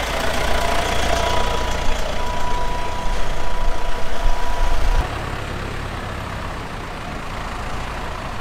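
Diesel tractor engines running close by, a low rumble with a steady whine over it. About five seconds in it drops suddenly to a quieter, even engine sound of tractors driving along the road.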